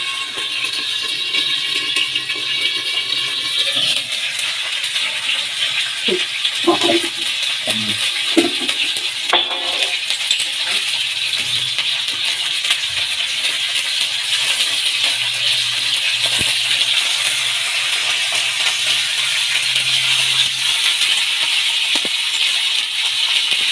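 Fish pieces sizzling steadily as they fry in ghee on a tawa. A metal spatula clinks and scrapes against the pan a few times, mostly near the middle.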